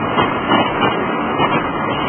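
Street tram running on its rails as it moves away, a steady loud rumble mixed with road traffic noise.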